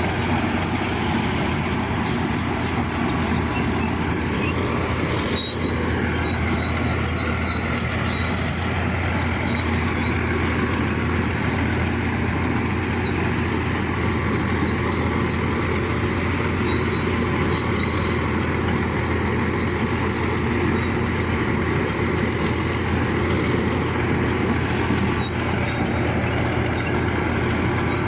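Bulldozer's diesel engine running steadily, a loud continuous low drone with machine noise over it.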